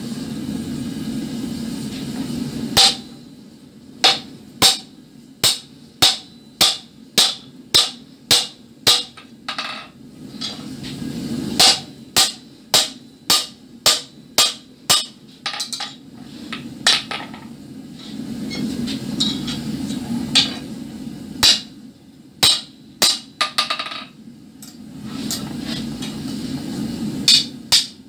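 Hand hammer striking red-hot iron on a steel anvil in runs of sharp, ringing blows, about two a second, with pauses between the runs. A low steady hum fills the pauses.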